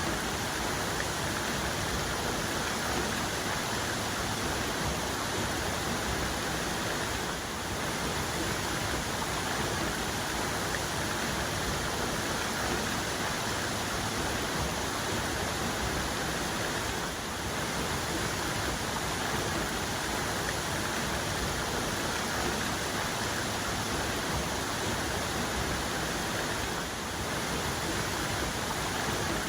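Waterfall's main cascade, water falling in a steady, even rush with no change, dipping slightly for a moment about every ten seconds.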